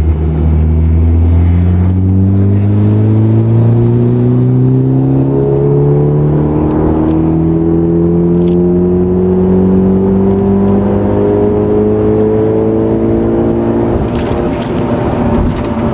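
Turbocharged four-cylinder engine of a Lancer-based Evo X 2WD with a TD05 turbo, heard from inside the cabin making a long pull in one gear for an ECU road-tune log: the revs climb steadily for about fourteen seconds. Near the end the engine note drops away, with a few short sharp noises.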